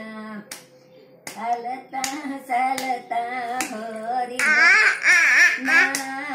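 Rhythmic hand clapping, a clap roughly every 0.7 seconds, under singing that holds steady notes. A child's loud, high, wavering voice breaks in over it a little past four seconds.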